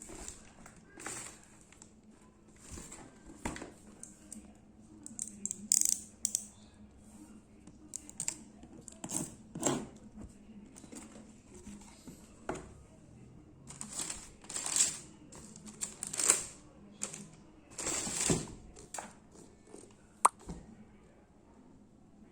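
Shoe-box packaging rustling and crinkling in short, irregular bursts as it is handled and unwrapped, with one sharp click near the end.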